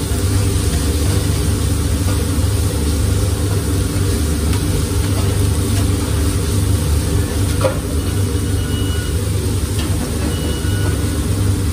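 Steady low rumble of commercial kitchen equipment, with faint sizzling as raw meat patties and chicken breasts cook on a flat-top griddle. A single light knock comes about eight seconds in.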